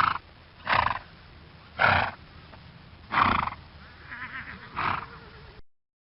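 Horse whinnying in a run of about six short calls, one with a quavering pitch about four seconds in, cutting off suddenly shortly before the end.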